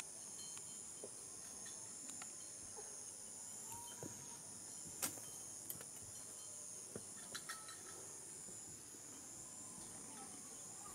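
Steady high-pitched chorus of insects in a maize field, one continuous trill, with a few faint clicks and a sharper click about five seconds in.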